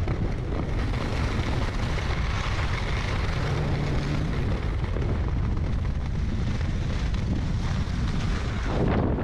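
Wind buffeting the microphone: a steady rush with a low rumble, swelling briefly near the end.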